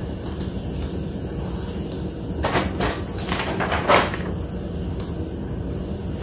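Epson ET-15000 inkjet printer running, a steady low mechanical whirr as it prints its print-head alignment sheets. A sheet of printed paper rustles from about two and a half to four seconds in, loudest near the end of that stretch.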